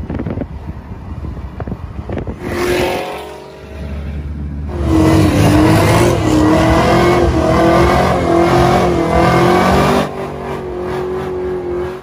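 Car engine running loud, its pitch wavering slightly. The sound jumps abruptly in level a few times: quieter for the first few seconds, loudest from about five seconds in, and dropping back near the end.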